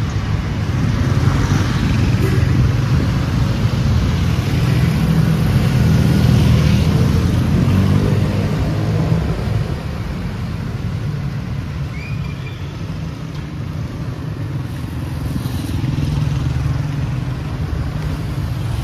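Street traffic: motor vehicle engines rumbling past close by, swelling through the first half, easing off, then swelling again near the end as another vehicle passes.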